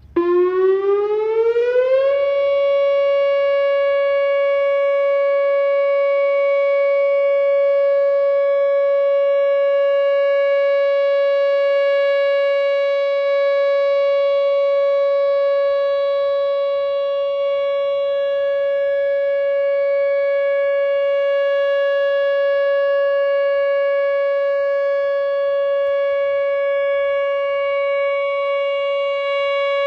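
Whelen WPS 2908 electronic outdoor warning siren sounding for a tornado warning drill. Its pitch rises for about two seconds as it starts, then holds one loud, steady tone.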